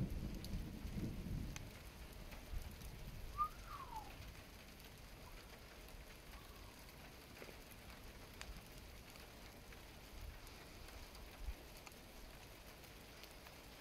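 Low rumble of distant thunder dying away over the first two seconds, then light rain with scattered drips. A single short falling chirp sounds a few seconds in.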